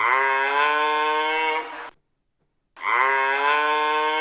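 Giraffe call played back: one long pitched call of about two seconds, then after a short pause the same call again. The two are identical.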